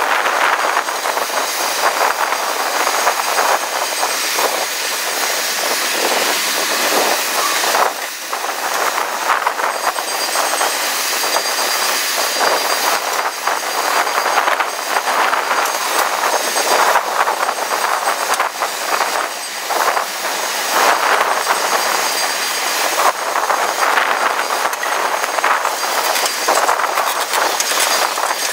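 Freight train of tank cars rolling past close by: a steady rush of steel wheels on rail, broken by frequent clicks and knocks from the wheels.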